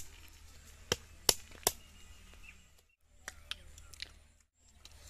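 Fire-roasted coconut shell being knocked against a rock to crack it open: four sharp knocks within about two seconds. Fainter clicks follow later.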